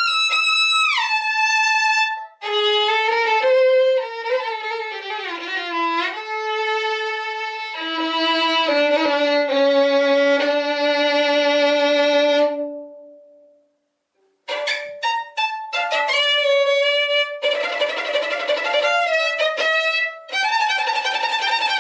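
Unaccompanied violin playing: sustained, sliding melody notes, then a long held note that dies away about 13 seconds in. After a short silence the violin comes back with quick detached notes and fast running passages.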